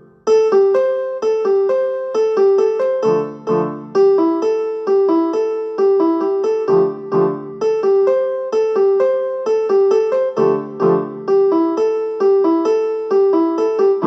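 Phone ringtone tune: a quick melody of short repeating notes, with lower chords coming in every few seconds.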